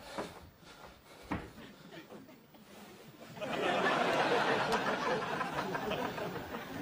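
Audience laughter that swells about three and a half seconds in and slowly tapers off near the end, preceded by two short knocks.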